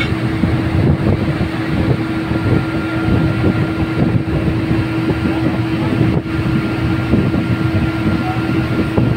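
Heavy rig machinery running steadily: an engine drone with a constant hum over a rumbling low end.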